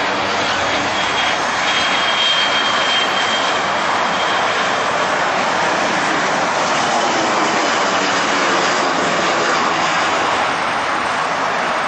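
The McDonnell Douglas MD-80 airliner's rear-mounted Pratt & Whitney JT8D turbofans run steadily as the jet comes in to land, a loud, even jet noise. A faint high whine rises out of it for a couple of seconds, from about one and a half seconds in.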